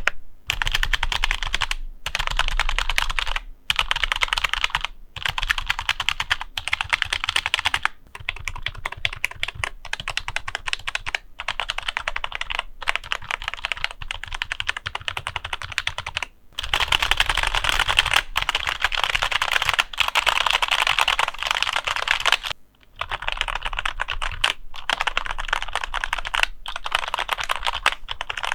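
Rexus K9E membrane keyboard, its switch housings, keycaps and stabilizers lubed with Krytox 205 grade 0, being typed on fast in a steady run of key clicks with short breaks every few seconds.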